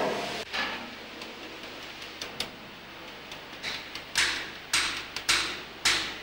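Stencil brush stippling paint through a metal stencil plate held against a steam locomotive's frame. A few scattered taps, then from about four seconds in a steady run of sharp dabs, roughly two a second.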